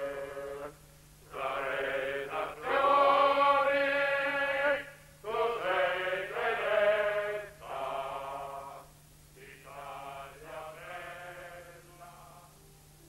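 Men's voices singing a slow song in long held notes, phrase by phrase with short pauses between, fading away over the last few seconds.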